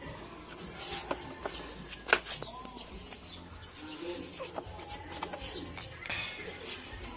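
Birds calling in short rising-and-falling notes, with a single sharp click about two seconds in.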